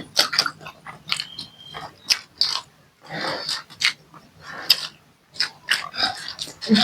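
Close-miked eating: irregular sharp crunches and chewing of food, a rapid scatter of clicks with a few longer rustling smears.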